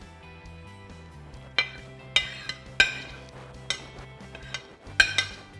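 Metal slotted spoon clinking against a plate about six times as salmon is scraped off it onto pasta, over steady background music.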